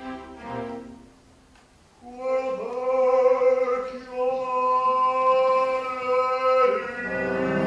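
Operatic baritone singing one long held note, unaccompanied, after the orchestra's chords stop about a second in. The orchestra comes back in near the end.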